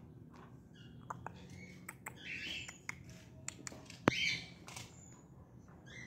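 Short bird squawks and chirps, with several sharp clicks; the loudest click comes about four seconds in.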